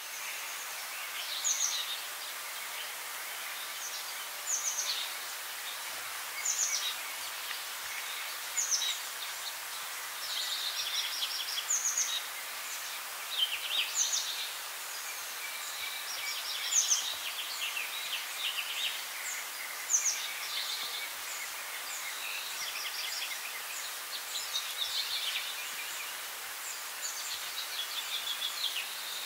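Birds singing over a steady background hiss. A short, sharp falling note repeats every two to three seconds, with quick trilling calls in between.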